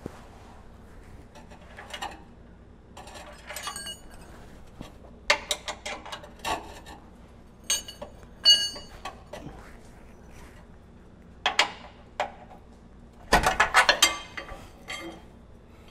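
Steel pry bar clinking and scraping against the rear lower control arm and its frame bracket as the bolt holes are levered into line. Scattered metal knocks, two of them ringing briefly about eight seconds in, and a quick run of clanks near the end.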